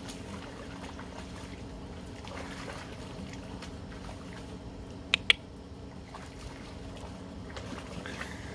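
German Shorthaired Pointer wading and pawing in shallow pool water, with light splashing and trickling. Two sharp clicks come close together about five seconds in, over a steady low hum.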